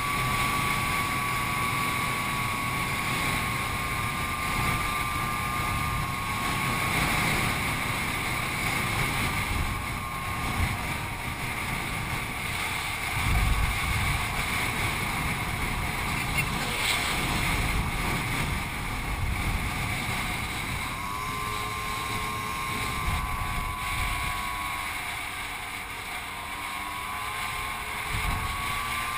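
Motor scooter engine running under way with a thin whine that wavers and climbs a little near the end, beneath a steady rush of wind buffeting the microphone.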